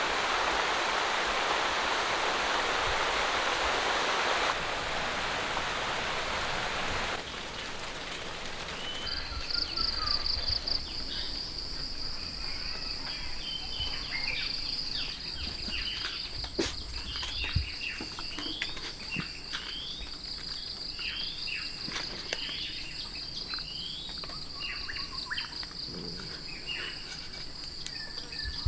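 Rural ambience. For the first nine seconds or so there is a steady rushing noise. Then a continuous high insect trill sets in, with birds chirping over it in short repeated calls and a few sharp clicks.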